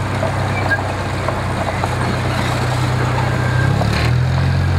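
The engine of a miniature zoo-railroad locomotive running as the train rolls along, a steady low drone whose pitch steps up a little near the end.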